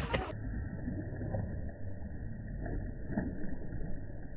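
Low, muffled rumble of wind on the microphone at the water's edge, with a few faint splashes of small feet in shallow water.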